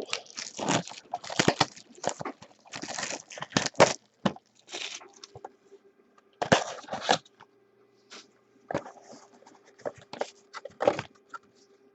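Plastic shrink wrap crinkling and tearing, with cardboard scraping, in irregular short rustling bursts as a sealed trading-card hobby box is opened.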